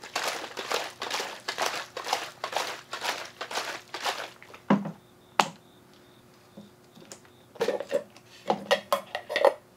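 Hard-boiled eggs rattling and knocking inside a plastic microwave egg cooker and peeler as it is shaken in a swirling motion to crack their shells. The shaking runs for about four seconds, then comes a sharp knock as the unit is set down. Near the end there is more plastic clatter as it is handled on the table.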